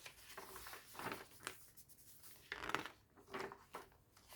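Pages of a handmade junk journal being turned: paper rustling in a few short bursts, the loudest about two and a half seconds in.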